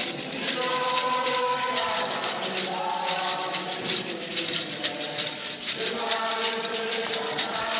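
Several voices singing a song in parts over a rattle shaken in a quick, even rhythm of several strokes a second.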